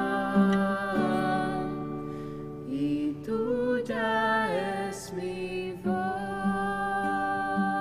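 Church music: long sustained instrumental chords, with a voice singing a short wavering phrase in the middle before the held chords return.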